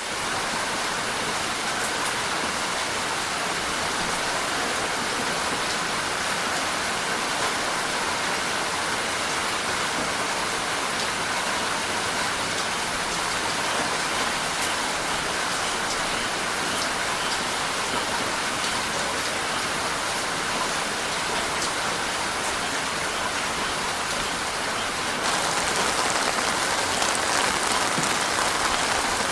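Heavy rain falling steadily on surfaces, with scattered drop ticks; it gets a little louder and brighter about 25 seconds in.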